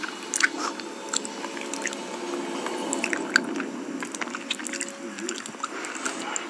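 Close-miked ASMR eating sounds of raw honeycomb, played through a phone's speaker: sticky, wet chewing with irregular squelches and clicks.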